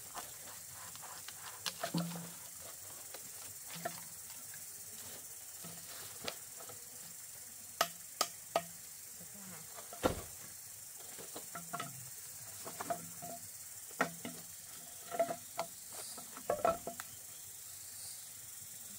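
Bamboo poles knocking and tapping against each other as they are handled and laid on the ground: scattered sharp knocks, the sharpest about ten seconds in, over a steady high hiss.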